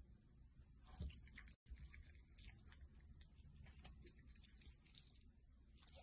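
Near silence with faint small clicks and ticks of an otter chewing and nibbling a scrap. The sound cuts out completely for a moment about one and a half seconds in.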